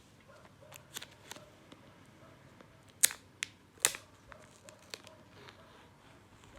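Plastic shrink wrap being torn and peeled off a phone box: a run of sharp crinkling snaps and clicks, the two loudest about three and four seconds in.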